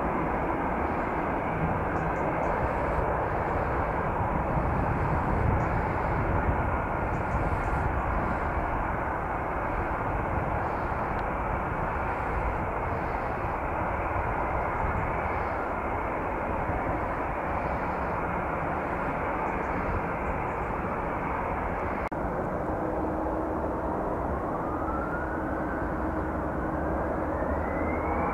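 Jet airliner engines running with a steady rumble; in the last six seconds or so a whine rises steadily in pitch as the engines spool up.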